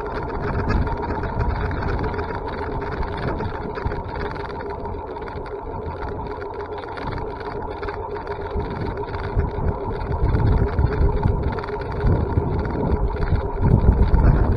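A motor running steadily with a constant whine, while wind buffets the microphone in low gusts that grow stronger after about ten seconds.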